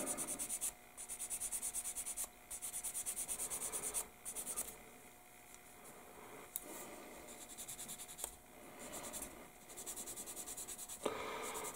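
A sanding stick rubbed back and forth over the edge of a small plastic model-kit part, cleaning up gate marks: a quick, rhythmic scratchy rasp, about ten strokes a second, in several runs, fainter in the second half.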